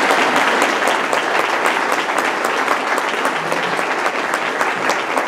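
Audience applauding: many people clapping steadily, easing off a little toward the end.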